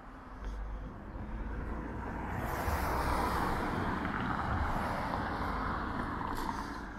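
A car driving past: the road noise swells about two seconds in, holds for a few seconds, then fades near the end.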